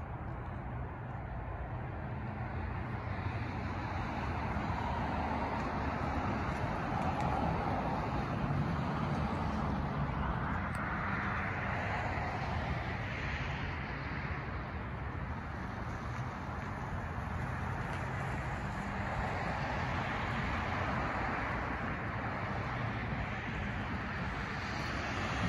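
Road traffic: cars driving past on the street, their engine and tyre noise swelling and fading a few times over a steady low hum.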